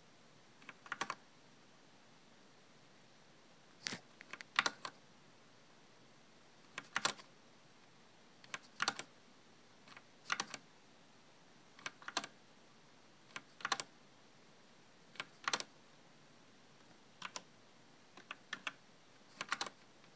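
E-Element mechanical gaming keyboard with red linear switches being pressed: short clusters of two to four keystrokes every second or two.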